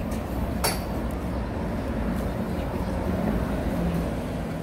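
City street ambience: a steady low rumble of traffic, with one sharp click a little over half a second in.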